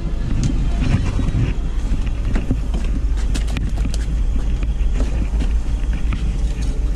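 Small boat's motor running with a steady low drone, with scattered clicks and knocks from the landing net and gear being handled.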